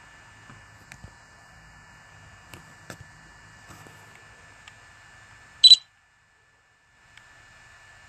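A single short, sharp camera-shutter sound about five and a half seconds in, over a faint steady hiss with a thin high tone and a few soft ticks. Right after it the sound cuts out completely for about a second, then the hiss comes back.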